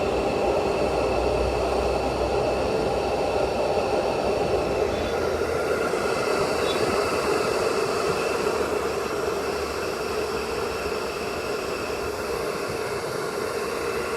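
Computer cooling fan in a homemade USB air cooler running steadily: an even whir with a constant hum.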